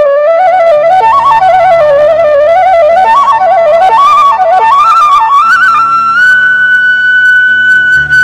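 Background music: a flute plays an ornamented melody that settles on a long held high note about six seconds in, over a soft low sustained accompaniment.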